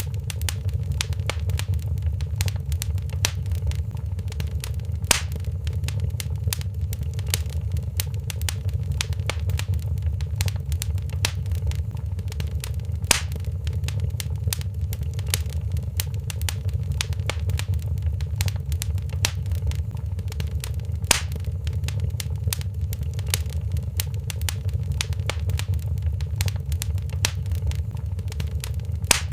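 Fireplace fire crackling over a steady low rumble, with dense small crackles and a louder pop about every eight seconds.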